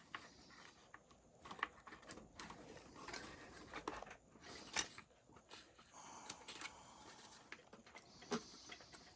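Faint, scattered clicks and short scrapes of hands and plastic parts as the front upper bulkhead of a Traxxas XRT RC truck is worked at and pried. It will not lift because a lip underneath holds it.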